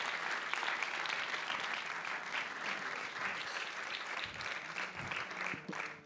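Audience applauding, easing off a little near the end.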